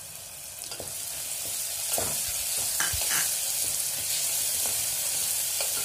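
Sliced onions and green chillies sizzling in hot oil in an aluminium pressure cooker, stirred with a wooden spatula that clicks against the pot now and then. The sizzle grows louder about two seconds in.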